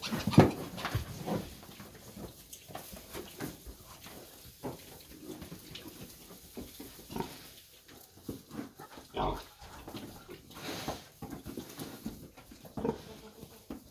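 A sow and her month-old piglets making short, irregular pig calls, the loudest about half a second in.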